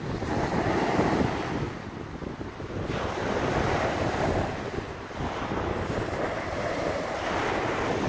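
Wind-driven waves on a river breaking and washing up a sandy shore, surging every two to three seconds, with wind buffeting the microphone.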